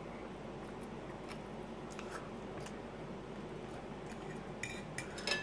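Quiet room with faint scattered clicks of eating; near the end a metal fork clinks and scrapes against a ceramic plate a few times.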